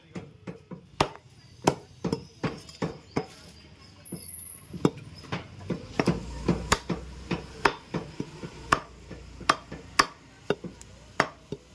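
Butcher's cleaver chopping mutton, a run of sharp, irregular chops about two a second, some heavier than others.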